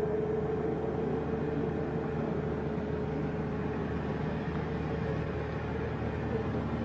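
Military field generator running steadily: a constant engine drone with a steady whining tone over it.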